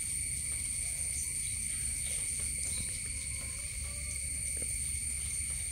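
A steady, high-pitched insect chorus drone with a low hum underneath, and a few faint light clicks.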